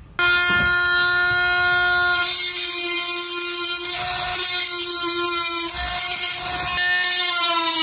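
Small cordless rotary tool running at high speed with a steady whine, its bit grinding into the casing of a Dallas real-time clock module to expose the chip's pins. The pitch sags briefly near the end as the bit bites in under load.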